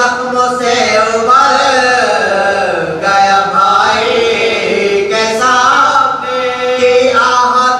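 Male voices chanting a melodic religious recitation, holding long notes that rise and fall in pitch.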